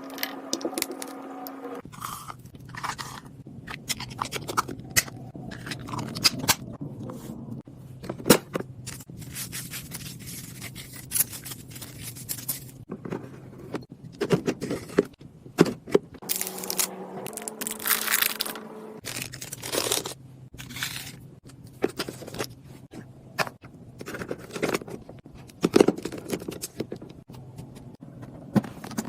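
Snacks, drinks and containers being handled and packed into a mini fridge: a run of scrapes, crinkles and sharp knocks as packages are moved and set down, over a steady low hum.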